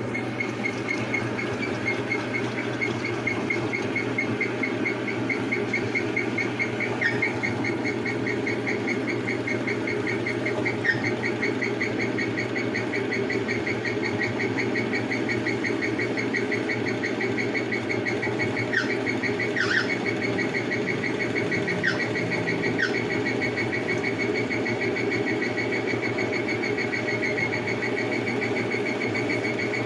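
Frigidaire 1-18 washing machine spinning: a steady motor hum and rush of the turning basket, with a high squeak chirping rapidly and evenly through it and a few faint ticks. The squeaking has come back after running quietly.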